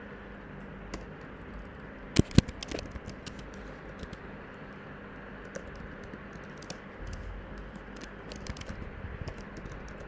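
Typing on a computer keyboard: irregular key clicks, with two louder keystrokes a little over two seconds in and quicker runs of keystrokes in the second half.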